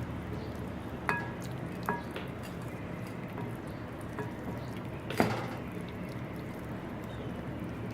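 A utensil clinking against a dish while marinade is spread on chicken pieces: short ringing clinks about a second in and again just before two seconds, and a louder knock about five seconds in, over a steady low hum.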